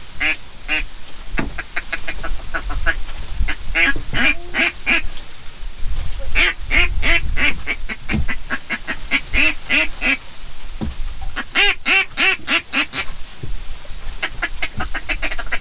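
Hunter's handheld duck call blown in quick runs of short calling notes, several per second, in bursts every second or two, to draw ducks in to the decoys.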